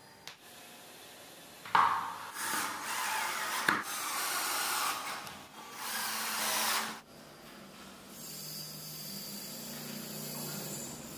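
Cordless drill/driver driving screws into wood in several bursts, with a couple of sharp knocks. It stops about seven seconds in.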